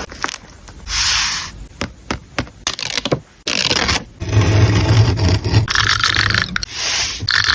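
Paper and stationery handled close to the microphone while a journal page is made: short scraping sweeps, then a run of small clicks and taps, then a longer stretch of scraping and rubbing.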